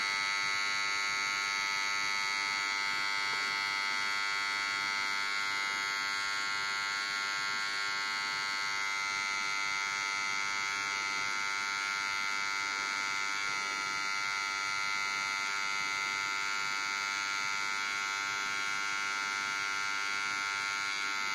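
Electrical buzz, a harsh steady hum with many overtones that sounds like an electric transformer, holding the same pitch and level throughout.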